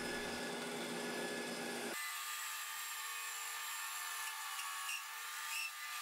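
Bandsaw driven by a treadmill motor through a link belt, running steadily while it cuts through a wooden board. The motor is running a little slow and the belt is slipping a bit.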